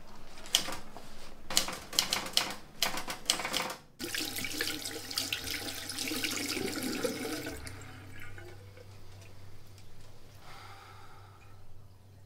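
Typewriter keys struck in quick runs of sharp clicks, stopping abruptly about four seconds in. Then a bathroom tap running into a sink while hands are washed under the stream, dying down about eight seconds in.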